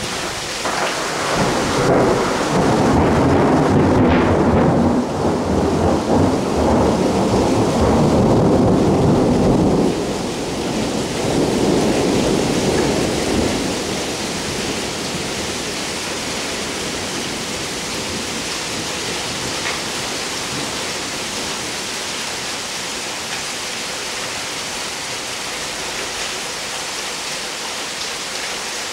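Rolling thunder rumbles over steady rain. It builds about a second in, swells twice and dies away about halfway through, leaving only the hiss of the rain.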